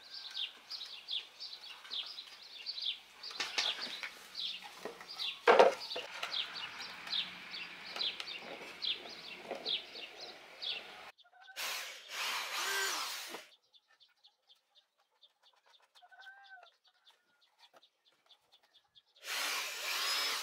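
Repeated high chirps, about three a second, with scattered knocks and one sharp knock about five and a half seconds in. Later a cordless drill runs into wood in two short bursts of a second or two, the second near the end.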